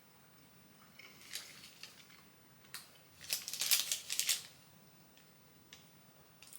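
Faint clicks and crinkles from handling and eating a dark chocolate marzipan log, with a denser burst of crinkling about three to four seconds in.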